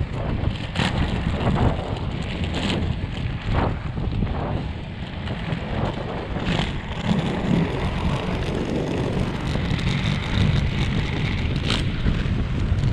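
Wind buffeting the action camera's microphone over the rumble of three-wheel inline skate wheels rolling on pavement, with sharp clicks scattered every second or so.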